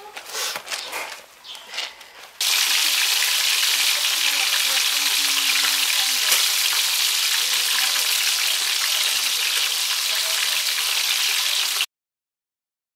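Fish frying in hot oil in a pan: a loud, steady sizzle that starts abruptly a couple of seconds in and cuts off suddenly near the end. Before it, soft rubbing and swishing of clothes being scrubbed by hand in soapy water.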